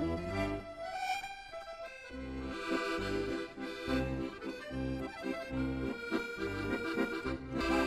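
Background music: a melody over a regular bass beat.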